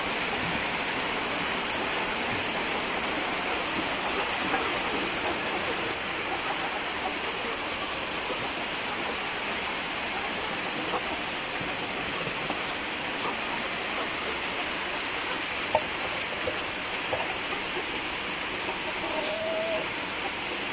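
Heavy rain pouring down steadily, a dense even hiss of a downpour.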